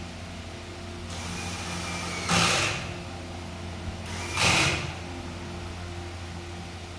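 A machine hum runs steadily, and twice, about two seconds apart, a short loud rush of noise cuts across it, each lasting about half a second.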